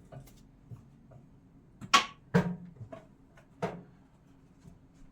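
Small kitchen containers such as spice and sprinkle jars being taken out of a cabinet and set down, giving a few sharp clacks, the loudest about two seconds in.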